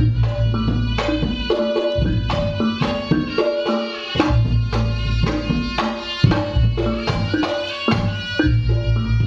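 Loud music played through a large sound system under test: struck melodic notes over drums with heavy, booming bass.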